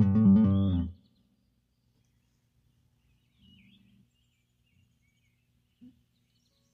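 Guitar and bass music that cuts off about a second in, then near silence with a faint low hum and a few faint, high, wavering chirps.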